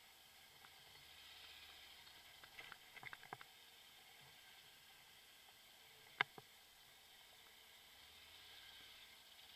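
Near silence: a faint steady hiss, with a quick run of small clicks about three seconds in and one sharper click a little after six seconds.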